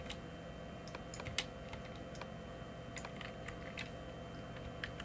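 Irregular clicks of a computer keyboard and mouse being worked, about a dozen short clicks in all, over a faint steady hum.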